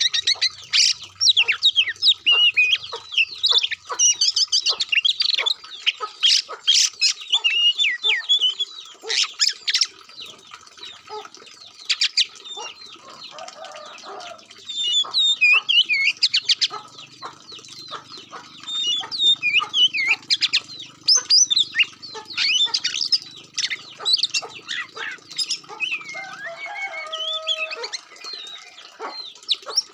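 Oriental magpie-robin (kacer) song: a fast, varied string of chirps, whistles and trills in phrases with short breaks.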